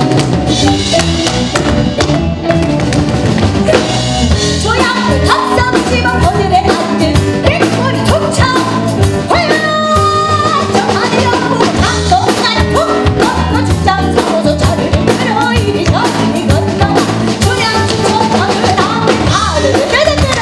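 Live band with drum kit, bass, guitar and piano playing a steady rhythmic groove, joined from about four seconds in by a woman singing in pansori style.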